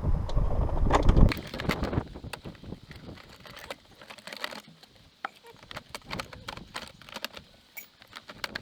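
Plastic center console trim of a car interior being handled and pressed back into place: a heavy rubbing and knocking for about the first second, then scattered light clicks and taps of plastic and small metal parts.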